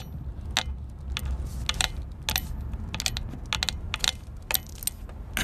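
Turn-signal flasher of a 2005 Ford Explorer Sport Trac clicking in a steady tick-tock, about one and a half cycles a second, over the low rumble of the engine and road inside the cab.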